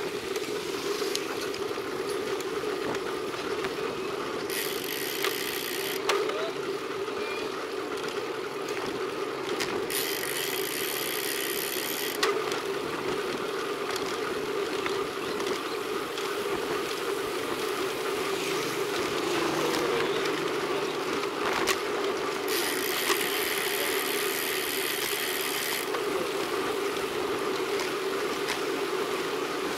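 Road bike rolling along pavement, heard through a bike-mounted camera: a steady tyre and wind rumble, with a few sharp clicks and three spells of a higher buzz lasting a couple of seconds each.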